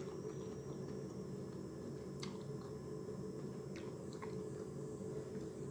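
A person chewing and biting food, with a few short wet mouth clicks, over a steady low hum.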